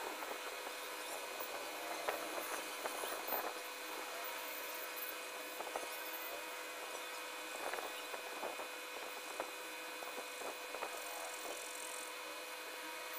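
Graphite pencil scratching across paper in quick, irregular shading strokes, with occasional sharper ticks, over a steady background hum.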